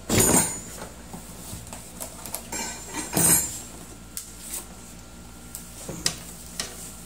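Cardboard box and bubble wrap rustling and scraping as a bubble-wrapped gas stove is slid out of its box and set down. There are two loud scrapes, one at the very start and one about three seconds in, followed by a few lighter knocks and crinkles.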